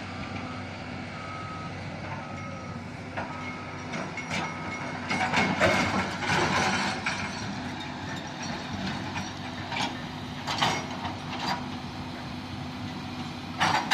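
Heavy diesel earth-moving machine running steadily, its reversing alarm beeping about one and a half times a second for the first three seconds. After that come loud knocks and clanks of metal, strongest a couple of seconds later and again near the end.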